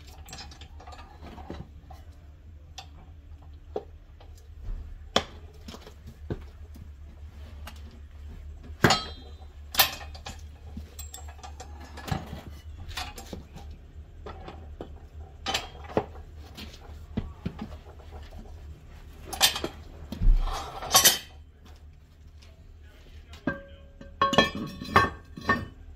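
Scattered metal clanks and knocks of a steel tire changer's bead breaker and bar against a steel wheel rim as a tire bead is worked loose. The loudest knocks come about two-thirds of the way through, and a ringing metallic clang follows near the end, over a steady low hum that stops shortly before the end.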